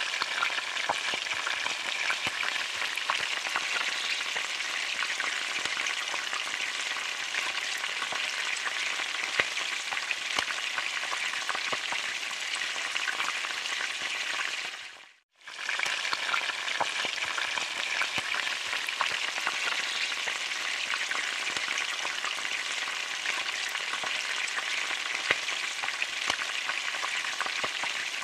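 Food deep-frying in hot oil: a steady sizzle with scattered crackles, fading out briefly about halfway through and then returning.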